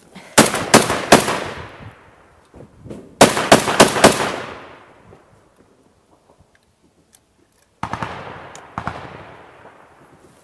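Three short bursts of close automatic gunfire, four or five shots each: about half a second in, about three seconds in, and a slightly quieter one near the end. Each burst trails off in a long echo.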